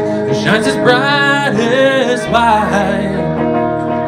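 Live music: a man singing a held, wavering vocal line over sustained electric guitar chords, the voice starting about half a second in and falling away about three seconds in while the chords ring on.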